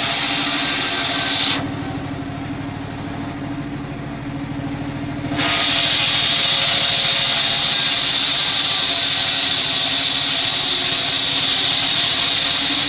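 Homemade band sawmill running, its engine droning steadily, with a loud high hiss of the blade cutting wood. The hiss stops about a second and a half in and starts again about four seconds later.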